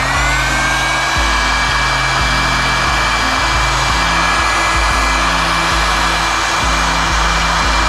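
Electric heat gun running steadily, blowing hot air onto heat-shrink tubing over wire terminals. Its fan makes a steady whine over a rush of air, settling to pitch right at the start.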